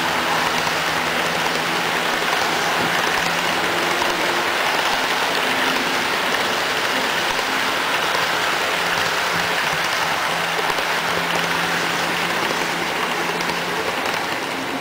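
HO scale model freight cars rolling past close by, their wheels on the track making a steady rushing clatter, with a low steady hum beneath.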